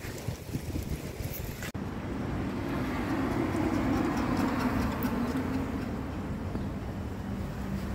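Sandstorm wind rushing and buffeting the microphone, uneven at first, then swelling to its loudest midway and easing off, with a faint steady low hum underneath.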